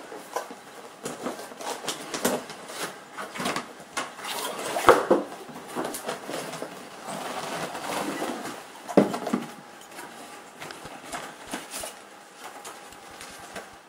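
Cardboard box being opened by hand: flaps scraping and rustling, with scattered clicks and two sharper knocks, about five and nine seconds in.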